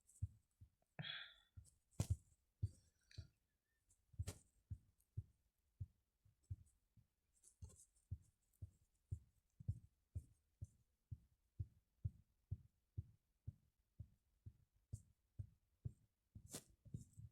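Faint, short low thumps repeating evenly about twice a second, with a few sharper clicks in the first few seconds.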